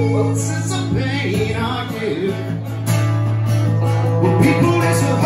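Live blues-soul music: a male voice sings sliding wordless runs over a strummed acoustic guitar, with an electric guitar playing alongside.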